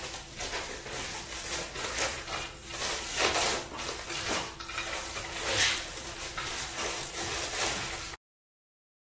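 Hands being washed under a running tap: a steady rush of water with irregular splashes. About eight seconds in, the sound cuts off completely.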